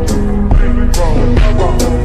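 Background music with a deep, sustained bass and a sharp hit about every second.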